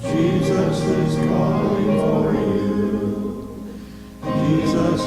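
Congregation singing a hymn together. One phrase fades out about three and a half seconds in, and the next begins under a second later.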